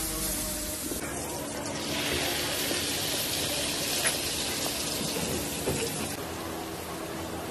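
Hot fat sizzling and bubbling in a frying pan as a sauce is made, a steady hiss that grows stronger about two seconds in and eases near the end.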